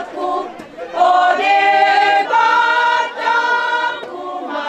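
A group of women singing together in unison, in long held notes, with a short break about half a second in.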